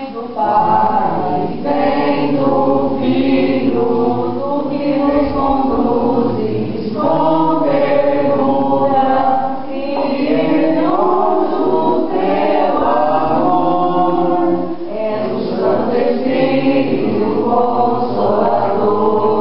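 Congregation singing a hymn together in Portuguese at a Catholic mass, in long sung phrases with a short breath between them every few seconds.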